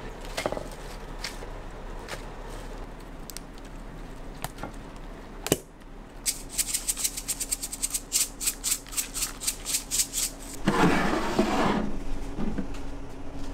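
Kitchen handling sounds: scattered light knocks and clicks, then about four seconds of quick, crisp clicking, four or five a second, and a short burst of rustling noise near the end.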